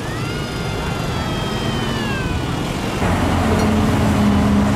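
A high whistle-like tone holds for about two seconds and then slides down in pitch. About three seconds in, the crane truck's diesel engine comes up louder and runs with a steady low hum.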